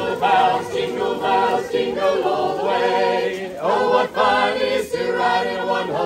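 A small choir of carol singers singing a Christmas song together, several voices held in chords.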